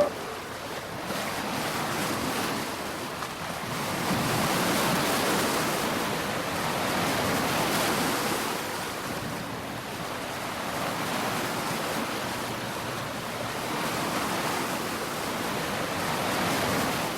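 Sea waves breaking as surf, a steady rush that swells and eases every few seconds.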